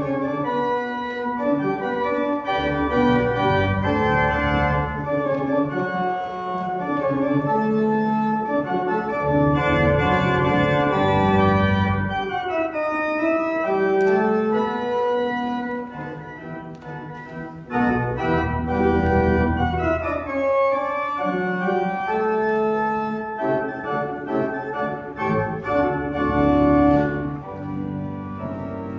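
Church organ playing the postlude after the dismissal: sustained chords over deep bass notes, changing every second or two and softening briefly about halfway through.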